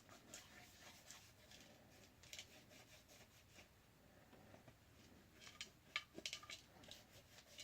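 Faint rubbing and light scratchy clicks from the disassembled phone being wiped clean with rubbing alcohol, with a short cluster of sharper ticks about six seconds in.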